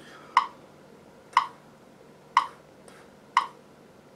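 Metronome clicking steadily once a second, 60 beats per minute, each click short and sharp.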